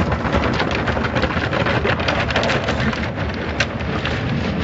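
Automatic car wash spraying water and foam onto a car's windshield and body, heard from inside the cabin: a steady, dense spatter of water over a low rumble.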